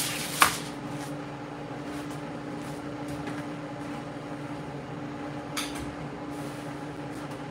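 A steady hum holds one pitch throughout. About half a second in, aluminium foil rustles and a tray gives a sharp knock as the racks of ribs are handled on it.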